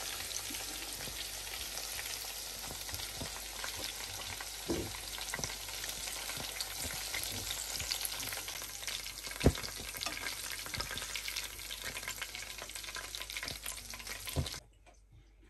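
Hot oil sizzling steadily as skewered chicken pieces shallow-fry in a pan, with scattered clicks and knocks of metal tongs against the pan as pieces are lifted out, one sharp knock about two-thirds of the way through. The sizzling cuts off suddenly near the end.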